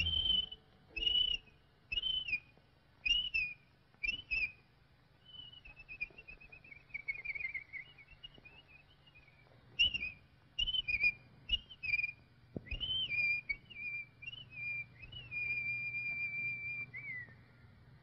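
Whistled bird calls on a cartoon soundtrack. First come short chirping whistles about once a second, then a falling warbled run, then more short whistles, and last a long held whistle that drops in pitch near the end.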